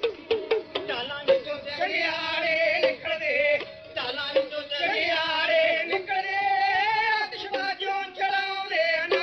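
Punjabi dhadi music: quick hand-drum strokes in the first second, then a melody with wide vibrato over held notes, with drum strokes running on beneath it.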